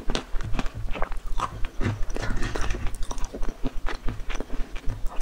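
A person chewing crunchy food with a full mouth, an irregular run of crisp crunches and mouth clicks.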